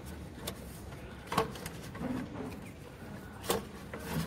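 Scattered sharp clicks and knocks from hands and tools working among the plastic pipes, clips and hoses of a car's engine bay, about four in a few seconds.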